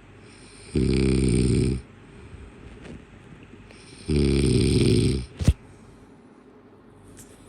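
Two loud, buzzy breath sounds, each about a second long and about three seconds apart, followed by a sharp click.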